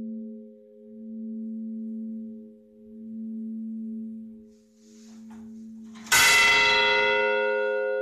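Church bells in a belfry: the low hum of a bell still ringing, swelling and fading about every two seconds. About six seconds in a bell is struck hard by its clapper and rings out with bright overtones, slowly dying away.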